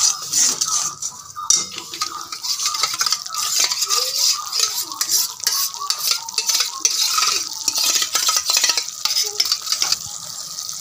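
Steel spatula repeatedly scraping and stirring a thick onion-yogurt masala in a metal kadai, with a steady sizzle of oil underneath as the paste fries until the oil separates.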